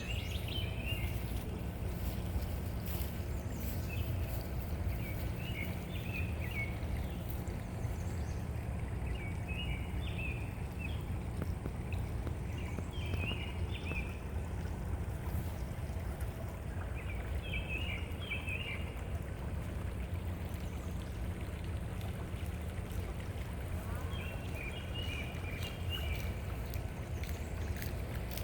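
Hummingbird wings humming steadily, with short bursts of twittering chirps every few seconds.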